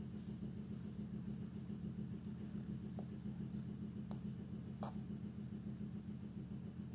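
Kitten purring steadily as it is stroked, a low continuous rumble, with three faint ticks around the middle.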